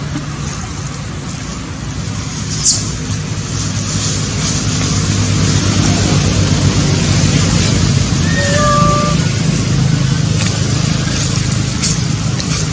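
A steady motor hum, with a brief high squeak about three seconds in and a short clear tone near the middle.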